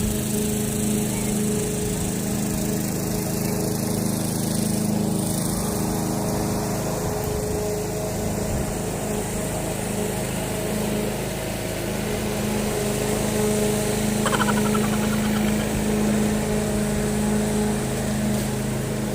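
Lawn mower engine running steadily with an even pitch.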